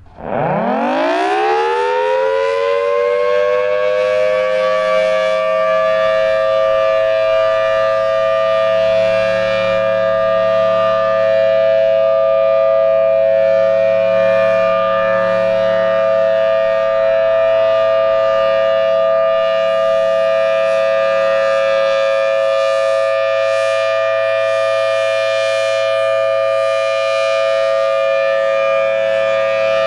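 Federal Signal Thunderbolt 1000T outdoor warning siren winding up from a standstill, its pitch climbing quickly over the first few seconds, then holding a loud, steady two-note chord: the steady Alert signal. The siren sounds healthy.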